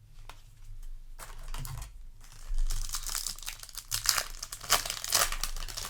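Foil Yu-Gi-Oh! booster pack wrapper crinkling and crackling as it is handled. It starts lightly about a second in and grows to a dense, louder crackle in the second half.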